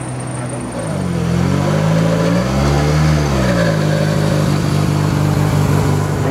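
Rally car engine idling, revved up smoothly once and let back down over about three seconds, then idling again.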